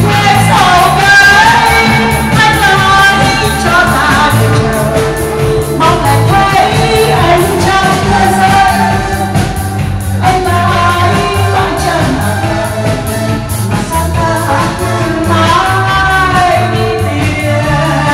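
Loud dance music, a singer's melody over a steady, repeating bass line.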